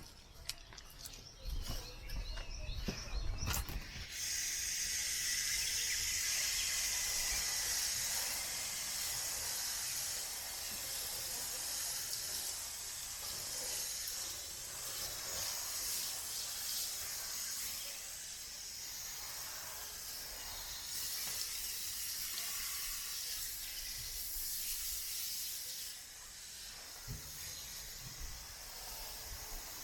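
A few knocks and rustles of handling, then a steady hiss that starts abruptly about four seconds in and runs on, shifting in level a few times and dropping a little near the end.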